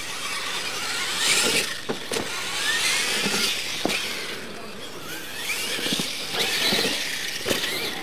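Losi LMT radio-controlled monster trucks racing on dirt: their brushless electric drivetrains whine, rising in pitch several times as they accelerate. Tyres scrabble on the loose dirt, with a few sharp knocks from the trucks bouncing and landing.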